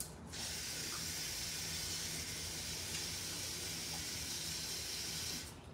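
Kitchen tap turned on and running, a steady gush of water that stops abruptly near the end.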